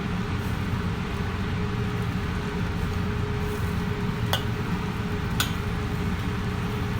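Pot of chicken stewing in coconut milk boiling hard on the stove, a steady bubbling noise, with two short sharp clicks about four and five seconds in.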